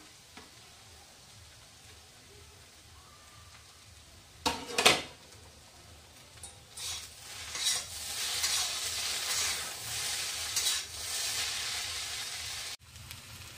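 Noodles and vegetables frying in a kadai on a gas stove, stirred with a spatula: a short clatter of the spatula against the pan about four to five seconds in, then a steady sizzle from about eight seconds that cuts off suddenly near the end.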